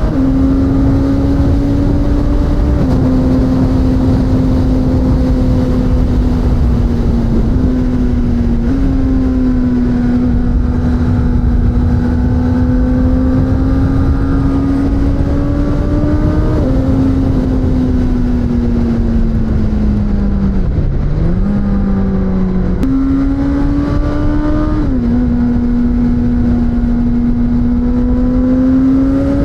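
Suzuki GSX-S1000's inline-four engine heard from on board while riding at fairly steady revs. Its pitch shifts in small steps with throttle and gear changes, and dips and climbs back about three-quarters of the way through, over a heavy rush of wind and road noise.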